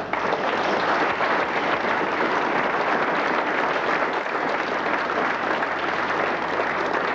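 A roomful of people applauding steadily.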